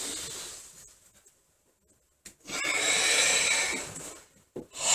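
Forceful, audible karate-style breathing in time with slow arm movements: a breath fading out in the first second, then a long hissing breath of about a second and a half midway, and a short sharp breath right at the end.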